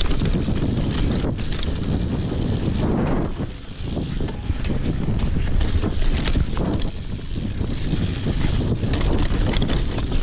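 Wind rushing over an action camera's microphone, mixed with the clatter of a mountain bike rolling over a rocky trail, its chain and parts rattling. The noise eases briefly about three and a half seconds in.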